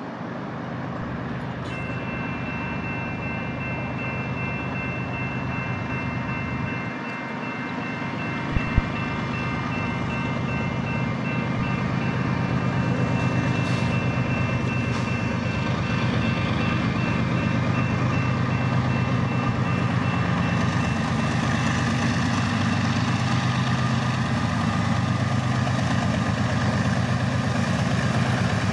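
Grade-crossing warning bell starting to ring about two seconds in and ringing steadily until about two-thirds of the way through, while the low rumble of the approaching BNSF freight's diesel locomotives grows steadily louder. A single sharp click is heard about a third of the way in.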